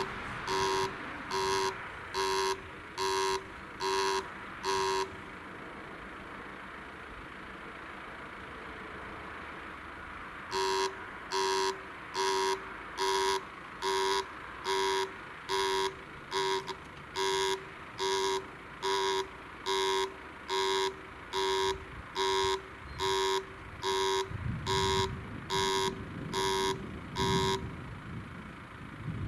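Level-crossing warning signal (a KBB-6 electronic acoustic signal) beeping about once every 0.85 s: a short run of beeps, a pause of about five seconds, then a longer run of about twenty beeps while the red lights flash and the barriers lower, warning that the crossing is closing for a train. A car's engine runs low underneath near the end.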